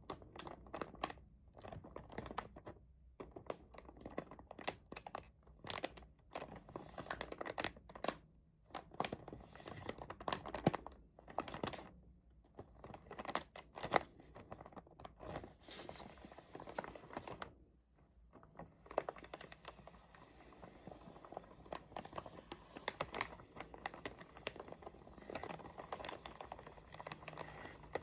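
Keyboard packaging being handled close up: crinkling and rustling of wrapping with many sharp crackles and taps, turning to a softer, steadier rustle about two-thirds of the way through.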